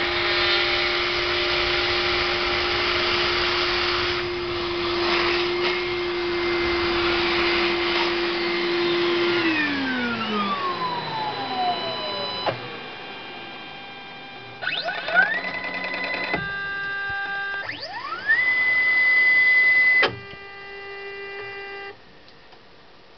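CNC router spindle running steadily while milling PVC, then spinning down with a falling pitch about nine seconds in. After it, the machine's axis motors whine in steady high tones, with rising glides as they speed up; the loudest whine comes about eighteen seconds in and cuts off suddenly two seconds later.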